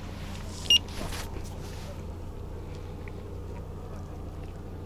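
Electronic bite alarm on a feeder rod gives a single short, high beep about a second in, the signal of movement on the line. A steady low hum runs underneath.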